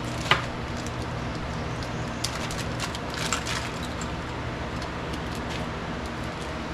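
Steady low background hum, with a few light clicks and rustles of small chainsaw kit parts being handled.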